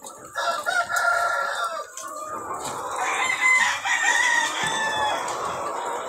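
Chickens calling and clucking: one long call near the start, then many birds calling over one another from about three seconds in.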